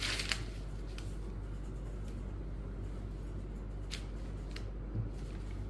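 Cotton saree cloth rustling and brushing against a wooden table as it is smoothed flat and a folded blouse piece is set on it, with a burst of rustling at the start and a few brief soft handling sounds later. A steady low hum lies underneath.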